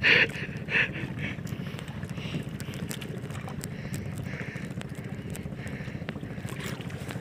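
Small boat engine running steadily at low speed, a low even hum.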